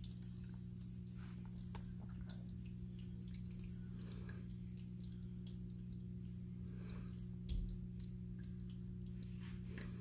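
PetSafe electric pet water fountain running: a steady pump hum under water trickling and dripping from the spout into the bowl. A single low thump about seven and a half seconds in.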